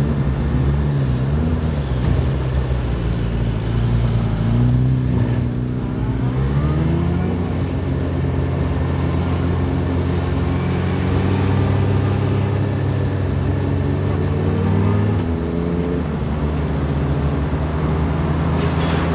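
Motorcycle engine heard from on board while riding through traffic, over steady wind and road noise. The engine note rises as the rider accelerates about five seconds in, holds, then drops a little later on.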